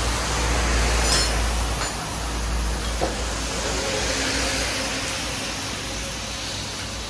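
Steady wash of rain and traffic on a wet road, with a deep rumble that swells about a second in and slowly eases. There are a couple of faint clicks.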